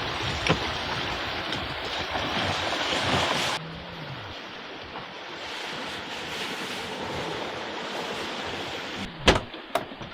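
Wind and water rushing past a sailing yacht under way. The rush drops suddenly to a quieter level about three and a half seconds in, and a couple of sharp knocks come near the end.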